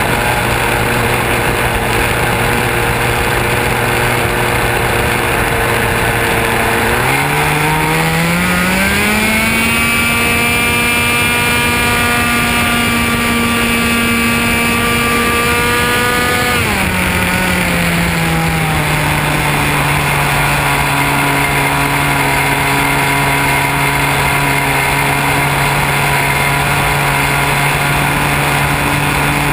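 Radio-controlled model airplane's motor and propeller running steadily, with wind rushing over the microphone. About seven seconds in the throttle opens and the pitch rises sharply to nearly double, holds for about ten seconds during a climb, then drops back and settles a little higher than at first.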